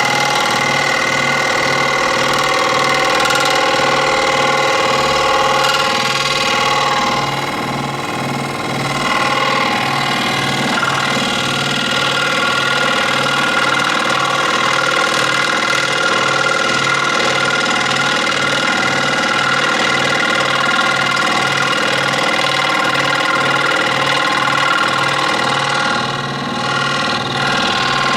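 Electric scroll saw running steadily, its blade reciprocating with a regular low pulsing and a mechanical hum; the sound dips briefly twice.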